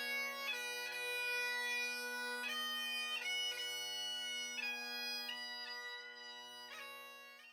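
Bagpipes playing a slow melody over steady drones, cutting off abruptly at the end.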